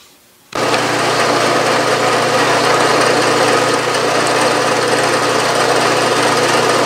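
Milling machine's spindle motor switched on about half a second in and then running steadily with an even hum, while a combination center drill spots a hole in the workpiece.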